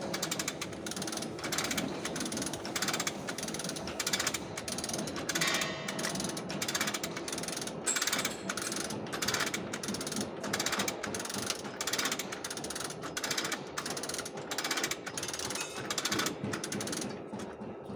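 Hand ratchet being worked back and forth in quick repeated strokes, about two a second, each stroke a fast run of pawl clicks.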